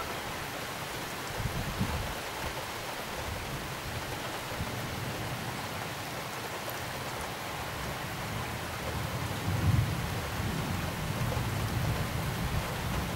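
Downpour of rain falling steadily, with low thunder rumbling in the background, briefly early on and swelling again in the last few seconds.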